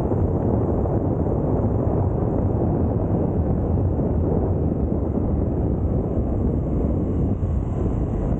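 Steady low wind rumble buffeting the microphone, even throughout with no distinct events.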